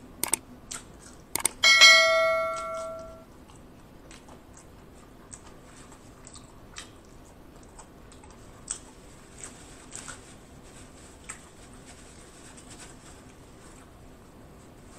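A couple of clicks, then a bright notification-bell ding that rings out and fades over about a second and a half: the sound effect of a subscribe-button animation. After it come only faint, scattered chewing clicks.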